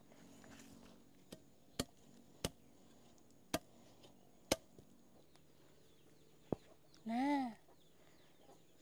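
Hand hoe blade striking and chopping into soil while digging up cassava roots: about six sharp, separate knocks at uneven intervals. A short call with a rise and fall in pitch sounds near the end, louder than the knocks.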